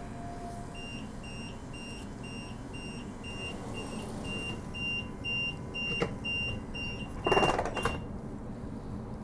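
Door-closing warning beeper on a Transperth Bombardier B-series electric multiple unit: a high beep repeating about twice a second for some seven seconds as the doors close. There is a knock about six seconds in, and the doors shut with a heavier thud about a second later.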